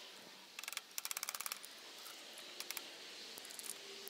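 Light metallic clicking and rattling as metal clamps are handled: two quick runs of rapid, even clicks about a second in, then a few single clicks.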